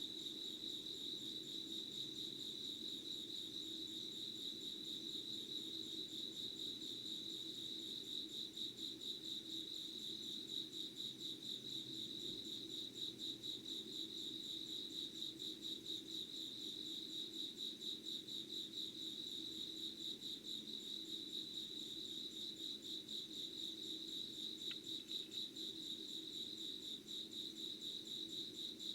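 Night insects singing in a steady, fast pulsing trill, with a faint low hum underneath.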